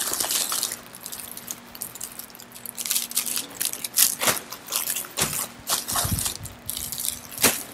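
White plastic courier mailer bag crinkling and rustling as it is pulled open by hand, in irregular crackles with the sharpest ones about four seconds in and near the end.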